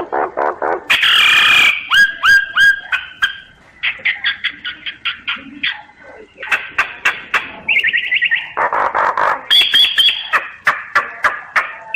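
Common myna singing: fast runs of short repeated whistled and clicking notes, broken by loud harsh, grating stretches about a second in and again around nine seconds.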